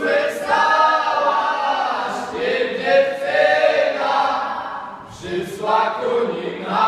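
A group of voices singing a Polish highlander (góralski) folk song together in long held phrases, with short breaks about two and five seconds in.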